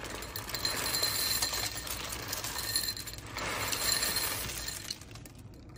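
Dry cat kibble pouring into a bowl and scattering across a tiled floor, a clinking rattle that comes in two long swells and then fades.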